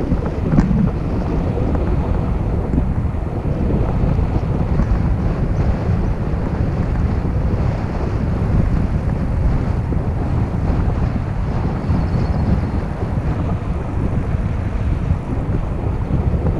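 Steady low rumble of a moving vehicle with wind buffeting the microphone, and a single brief knock about half a second in.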